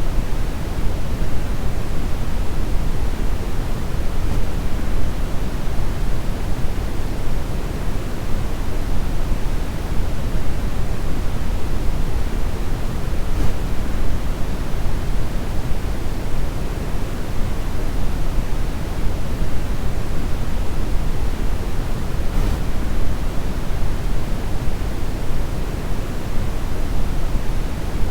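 Brown noise: a steady, unchanging hiss, heaviest in the bass and falling away toward the treble.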